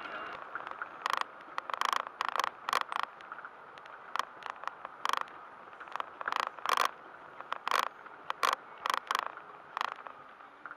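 Irregular sharp clicks and rattles, about one or two a second, as a car rolls slowly over a rough lane, over faint steady road noise.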